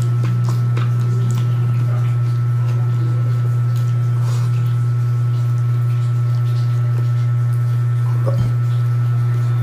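Steady low hum, with faint wet clicks of chewing and of fingers working cooked rice as a man eats by hand. A soft knock about eight and a half seconds in.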